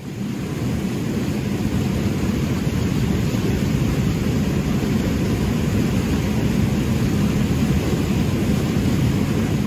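Fast river rapids rushing over sandstone ledges: a loud, steady, deep rushing noise that fades in over the first second.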